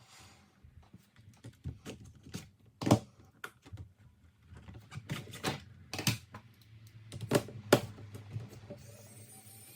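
Irregular clicks and taps from a laptop being handled, its plastic casing and small parts knocking, with a few sharp knocks louder than the rest. Near the end a faint steady high hiss comes in.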